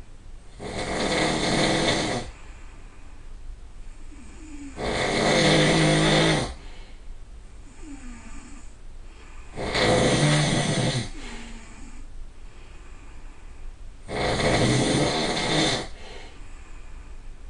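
A person snoring loudly: four long snores, each about a second and a half, coming every four to five seconds, with quieter breathing between them.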